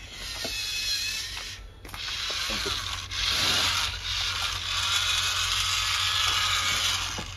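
Small electric gear motors of a toy transforming remote-control car whirring as it unfolds from a car into a standing robot and folds back into a car. The whirr runs in two stretches with a short break about two seconds in.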